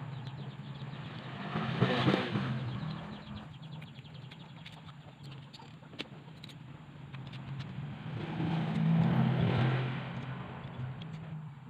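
Motor vehicles passing by: a low engine drone swells about two seconds in, fades, and swells again near nine seconds. Faint light clicks in between from small metal carburetor parts being handled.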